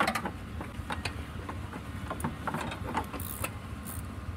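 Hands handling the hard plastic air box cover in a 2000 Ford F-150's engine bay: scattered clicks, knocks and short scrapes over a steady low background hum.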